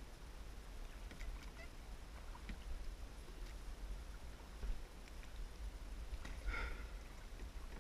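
Kayaks being paddled on calm water: faint paddle strokes, drips and small knocks over a steady low rumble, with one short call about six and a half seconds in.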